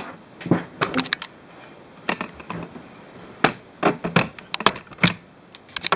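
Irregular light clicks and knocks of handling, as the RC car and the camera are moved about on a wooden desk.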